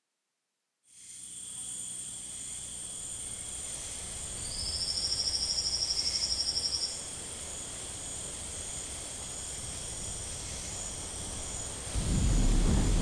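Rainforest ambience of insects chirring steadily. A louder, rapid insect trill runs from about four and a half to seven seconds in. Near the end a louder low noise takes over.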